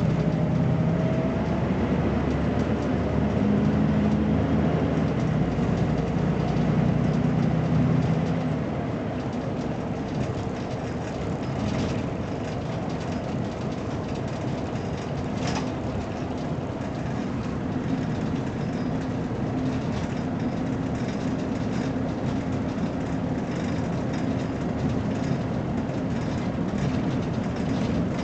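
BMC Belde 220-SLF city bus engine running under load, then easing off about eight seconds in to a lower, steadier run, picking up again near the end. Two sharp knocks come through in the middle.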